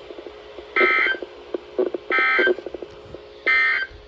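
Emergency Alert System SAME data tones: three short, identical bursts of two-pitch digital warbling, about a second apart. This is the end-of-message code that closes a broadcast weather warning.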